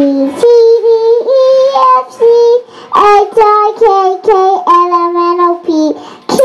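A young girl singing into a handheld microphone, a simple nursery-style tune in a run of held notes, each about half a second long, stepping up and down in pitch, with brief breaths between phrases.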